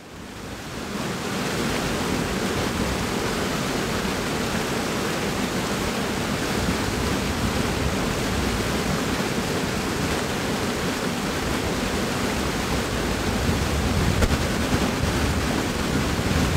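Water pouring over a small weir and churning into the pool below: a steady rushing sound that fades in over the first second or so.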